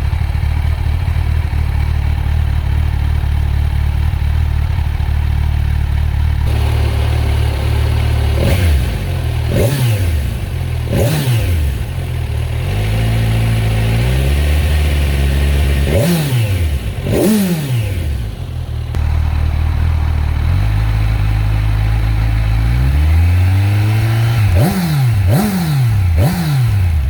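Kawasaki Ninja 1000SX's inline-four engine through its stock exhaust, idling steadily at first, then revved in a series of sharp blips that fall straight back to idle. There are two longer pulls about halfway through and again near the end, and a quick run of blips closes it out.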